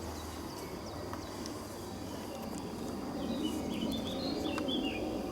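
Outdoor background noise with a bird chirping a quick run of short notes from about three seconds in. A few faint clicks are heard along with it.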